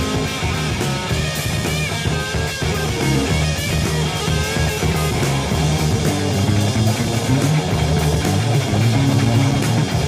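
Instrumental passage of an early-1970s heavy rock recording: electric guitar playing over a moving bass guitar line and steady drums, with no singing.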